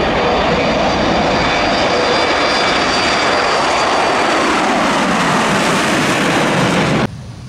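Jet engines of a Boeing 737 at takeoff thrust as it rolls down the runway and lifts off: loud, steady jet noise with a faint high whine that fades about halfway through. The sound cuts off suddenly near the end.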